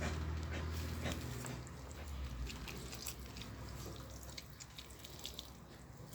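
Small wet clicks and smacks from soft boiled chicken heads, scattered irregularly, with a low hum fading out in the first second or two.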